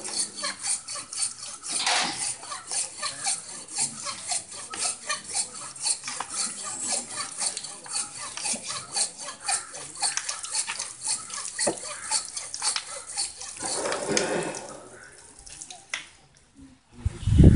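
Hand saw cutting through an elephant's tusk in quick, even back-and-forth rasping strokes, with water poured onto the cut. The sawing stops a couple of seconds before the end.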